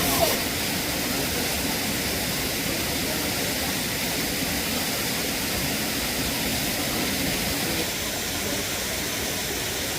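Steady rushing roar of a waterfall, an even noise without a break.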